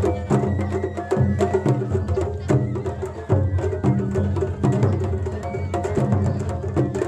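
Japanese festival music (matsuri-bayashi): quick, even percussion strikes over held pitched notes.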